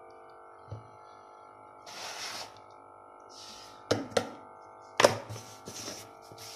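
Kitchen handling sounds as gram flour is sprinkled over a marinated fish in a bowl: a few short rustles and several sharp taps and knocks, the loudest about four and five seconds in, over a steady background hum.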